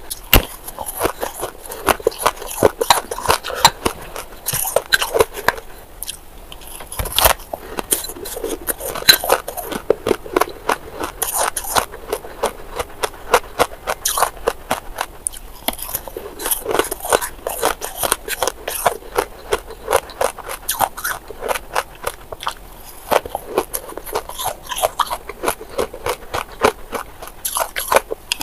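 Shaved ice being bitten and chewed, a dense run of crisp crunches with short pauses, with a metal spoon scraping through the ice in a glass bowl.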